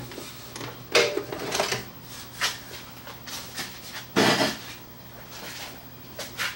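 Top cover of a VHS VCR being lifted and slid off the chassis: a series of knocks and scraping clatters, with a heavier thump about four seconds in and another knock near the end.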